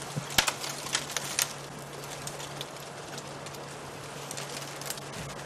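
Newborn elephant calf and its mother stepping over dry twigs and sand, with a few sharp crackles and snaps in the first second or so. A steady low hum and a soft hiss run underneath.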